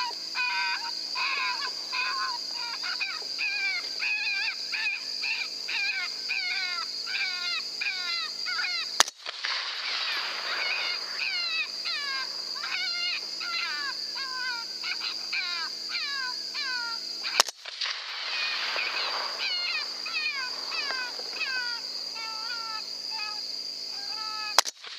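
A rapid, even series of short, high squealing animal-like calls, two or three a second, over a steady high hum, broken by a sharp click three times.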